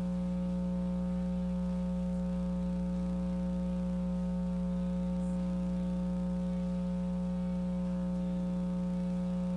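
Steady electrical mains hum with a buzzing stack of overtones, unchanging throughout and with no other sound over it.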